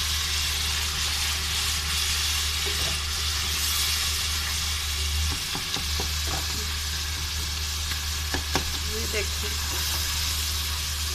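Onion-tomato masala sizzling steadily as it fries in oil in an aluminium pot, stirred with a wooden spoon, with a few light knocks of the spoon against the pot a little after the middle. A steady low hum runs underneath.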